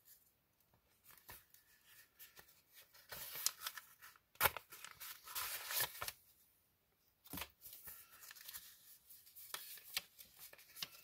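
A mailing envelope being torn open by hand: paper tearing and crinkling in two busy stretches, with a sharp snap about four and a half seconds in.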